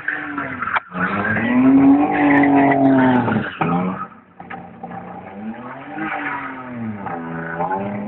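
BMW car engine revving hard while spinning doughnuts, with tyre squeal. The revs climb and hold for a couple of seconds, drop off sharply about three and a half seconds in, then swell and fall again near the end.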